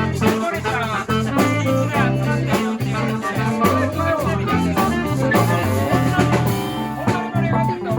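Live band playing a blues number with electric guitar, bass and drum kit, between sung lines.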